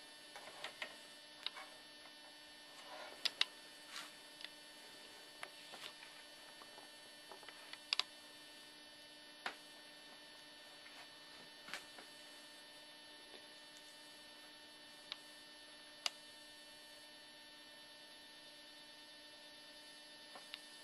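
Faint, steady electrical hum with scattered small clicks and knocks, one every second or two, a few of them sharper.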